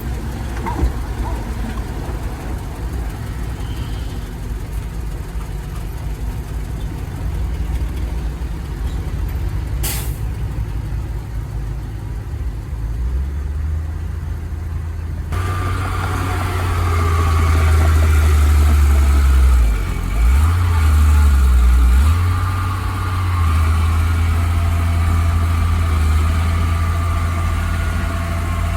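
Heavy diesel engines of land-clearing machinery running, a steady low rumble. It gets louder and deeper about halfway through and dips briefly about two-thirds of the way in. A brief high click comes about a third of the way in.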